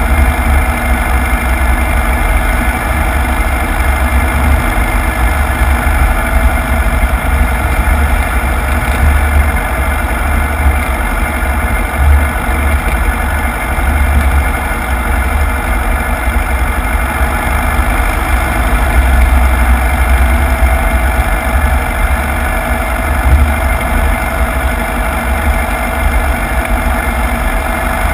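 Ski-equipped Piper Cub's air-cooled piston engine and propeller running steadily at low power as the plane taxis over snow.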